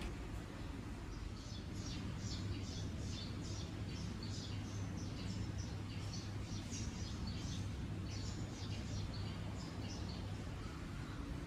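A small bird chirping in quick, repeated high notes, starting about a second in and dying away near the end, over a steady low background hum.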